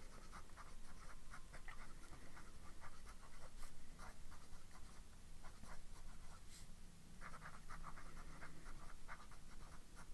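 Fountain pen nib scratching on paper in bursts of short strokes, with brief pauses between words, as a label is handwritten.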